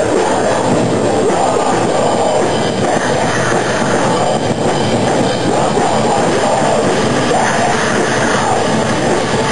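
Live heavy rock band playing loud, heard as a dense, unbroken wall of sound with no clear notes standing out.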